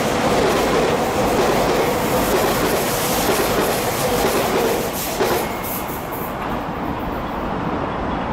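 Tokyu Den-en-toshi Line electric commuter train running through the station at speed without stopping: a loud rush of wheels on rail and passing cars. The noise drops off about five seconds in as the last car goes by.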